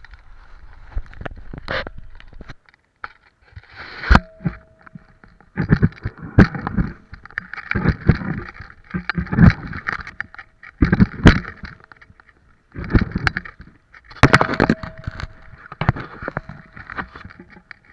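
Skis scraping and hissing over packed snow in a run of turns, in bursts every second or two, with sharp knocks on the camera mount.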